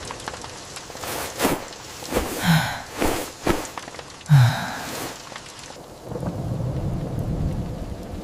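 Heavy rain with thunder. In the middle comes a run of sharp cracks and two short vocal sounds, the second of them the loudest moment, and after that a steady low rumble of rain and thunder.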